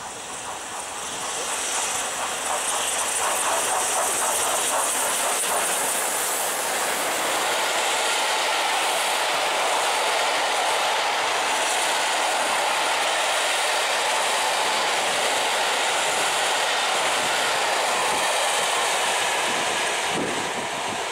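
Peppercorn A1 Pacific steam locomotive 60163 Tornado, a three-cylinder engine, running through at speed with a passenger train. The sound builds over the first couple of seconds as the locomotive passes. Its coaches then run by with a steady clatter of wheels over the rail joints, easing slightly near the end as the train draws away.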